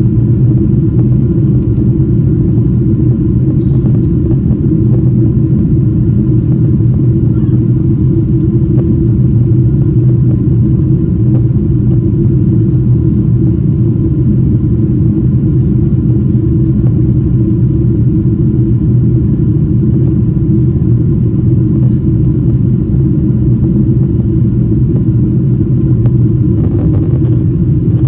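Steady low cabin rumble inside a Boeing 777-200ER airliner in flight: engine and airflow noise, unchanging in pitch and level.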